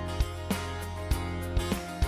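Background music with a regular beat over sustained tones.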